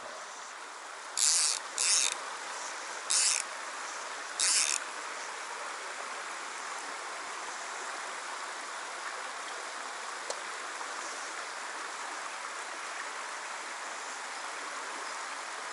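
Shallow mountain stream running steadily over stones. Within the first five seconds, four short, high buzzes about a second apart rise well above the water.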